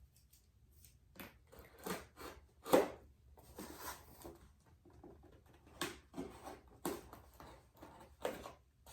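Cardboard shipping box and packaging being handled and opened by hand: irregular knocks, rustles and scrapes, the loudest knock about three seconds in.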